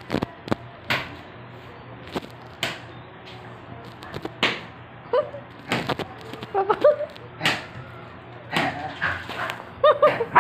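Scattered sharp thumps and slaps on a tile floor as a dog and a man play rough, with a few short high yips from the dog in the second half.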